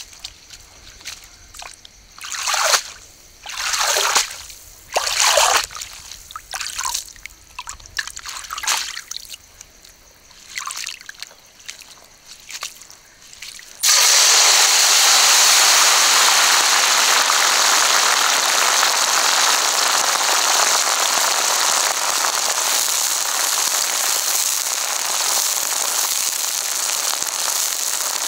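Several separate splashes and sloshes of a woven basket being worked in shallow river water. About halfway through, crickets drop into hot oil in a wok and a loud, steady deep-frying sizzle takes over, fading a little toward the end.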